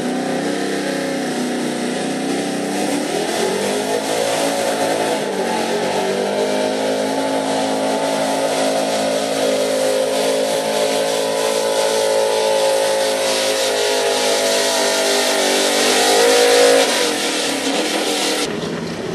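Gasoline engine of a Chevy pickup at full throttle pulling a truck-pull sled, its pitch falling and climbing again several times as it runs. It climbs once more near the end, then the sound stops abruptly.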